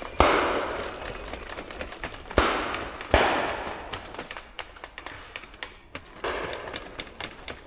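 Shotgun shots from the line of guns on a driven pheasant shoot, four in about six seconds, each followed by a long echoing tail; the last one is fainter.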